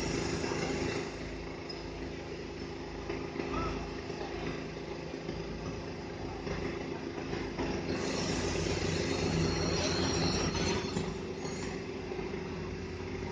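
Truck crane's diesel engine running steadily under load, a little louder from about eight seconds in, with faint high-pitched metallic squeals.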